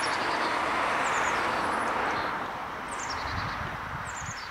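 A vehicle passing on a nearby road, its noise fading away after about two seconds, while a bird gives short, high, falling chirps several times.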